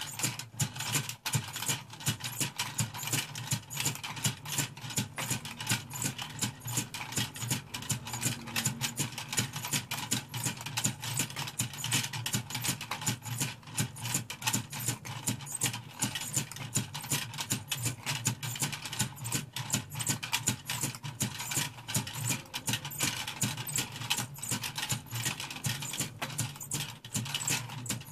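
Clockwork mechanism of a 1930s windup acrobat toy running, a rapid, steady clatter of clicks as the celluloid figures spin and twirl on the wire trapeze.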